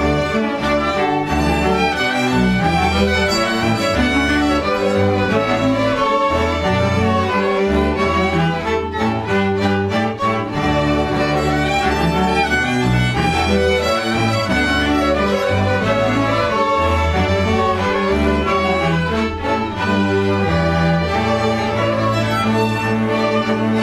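Instrumental music from a bowed string ensemble, violins over cello and bass, playing continuously.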